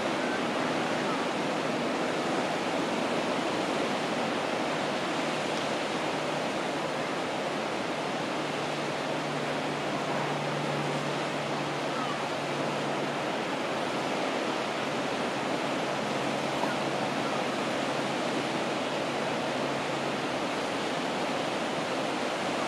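Surf breaking and washing up a sand beach, a steady rush of waves. A faint low hum from the distant train comes in for several seconds in the middle and fades.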